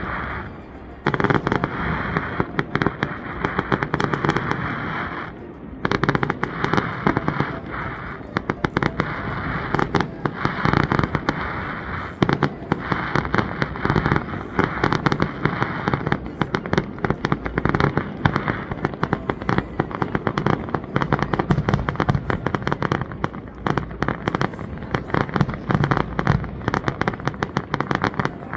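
Fireworks display: a rapid, dense barrage of bangs and crackling from shells and low-bursting effects, going on almost without pause. There are short lulls about a second in and again about five seconds in.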